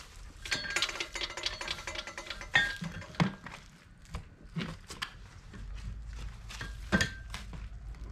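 Hammer striking a hot steel horseshoe on an anvil to straighten it, with a ringing metallic note on each blow: a quick run of light taps for about two seconds, then a handful of single, heavier blows spaced about a second apart.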